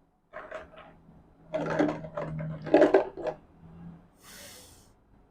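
A woman's voice making short, clipped letter sounds over and over, as in saying a consonant's phonics sound, followed near the end by a brief hiss.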